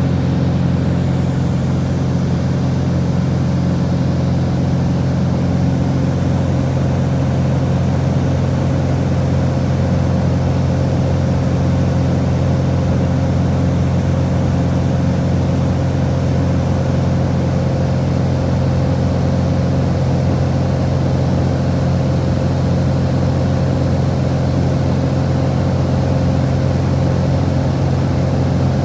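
Small private plane's engine and propeller heard inside the cabin in flight: a loud, steady drone with a strong low hum that does not change.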